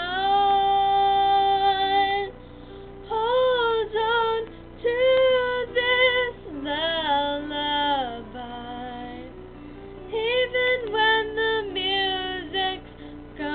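A young girl singing a slow ballad solo, in held notes and short phrases with brief pauses between them. A soft, steady accompaniment runs beneath her voice.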